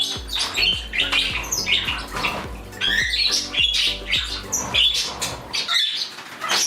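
Squawks and chirps from a room of pet parrots and parakeets, many short calls overlapping, over background music that stops shortly before the end.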